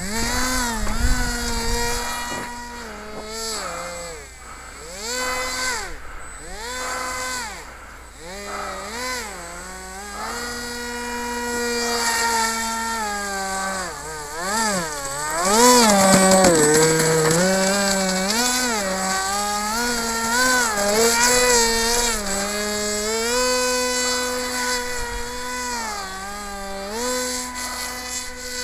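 Small homemade airboat's propeller motor buzzing, its pitch rising and falling again and again as the throttle is opened and closed. It is loudest, with a long high-revving run, about halfway through.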